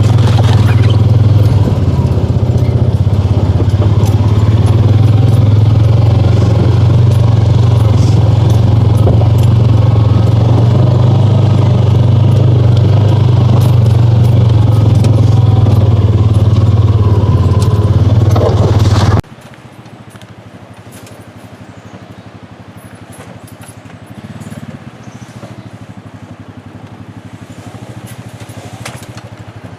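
Honda Pioneer 500 side-by-side's single-cylinder engine running steadily under way, a loud, even low drone. About two-thirds of the way through it cuts off suddenly, leaving a much quieter background with faint low rumbling.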